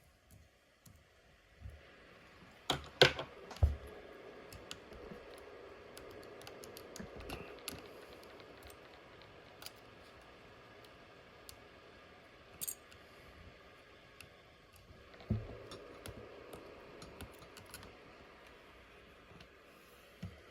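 Small clicks, taps and scrapes of repair tools and phone parts being handled on a work surface, with a couple of louder knocks about three seconds in and another near fifteen seconds.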